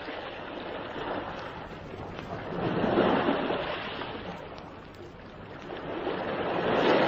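Sea waves washing onto a beach, swelling twice, about three seconds in and again near the end.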